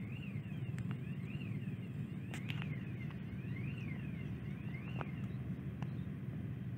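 Outdoor ambience: a steady low rumble, with a faint whistle that rises and falls about once a second and a few sharp clicks.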